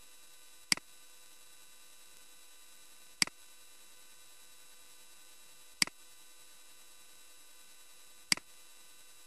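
Four sharp mouse clicks, each a quick double tick as the button goes down and up, about two and a half seconds apart, over a faint steady electrical hum and hiss.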